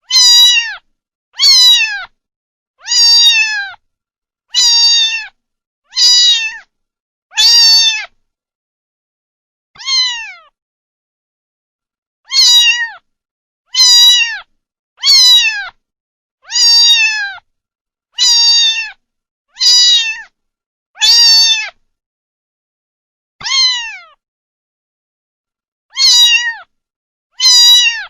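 A kitten meowing over and over: short, high meows that fall in pitch at the end, about seventeen of them, mostly every second and a half, with a few longer pauses. The meows are near-identical and separated by dead silence, like a repeated sound-effect clip.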